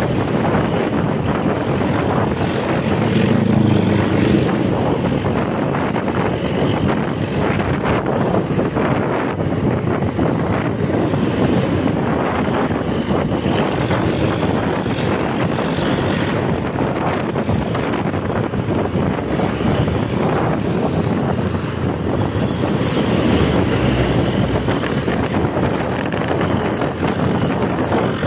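Intercity bus engine running hard with a 'ngorok' (snoring, growling) exhaust, a steady low drone that swells slightly a few seconds in and again near the end.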